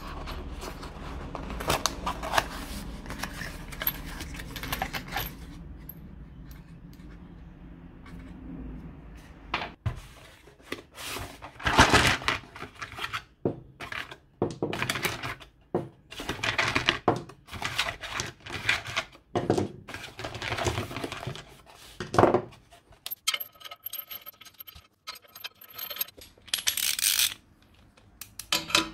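Steel bolts clinking and clattering as they are handled and picked out of a cardboard box. Near the end a cordless drill driver whirs for a few seconds as it runs bolts in.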